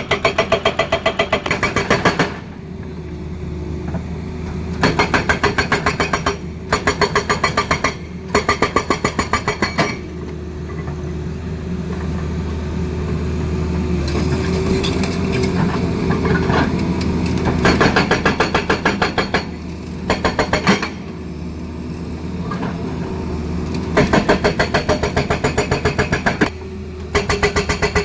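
Tata Hitachi excavator's hydraulic breaker hammering in repeated bursts of rapid blows, each burst one to two and a half seconds long. The excavator's diesel engine runs steadily between the bursts.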